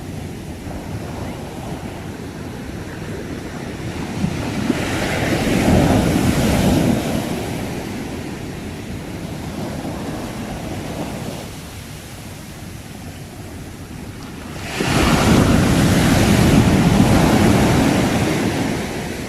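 Sea waves surging and breaking on the shore. One wave builds about four seconds in and falls away, and a second breaks suddenly about fifteen seconds in and runs on until near the end.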